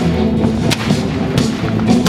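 Background music with held tones, cut through by a few sharp shots: black-powder cannon and gunfire, about four reports in two seconds.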